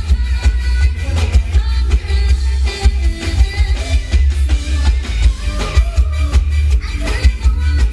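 Live Thai string (pop) band music with a woman singing over drums and heavy bass, amplified through a PA.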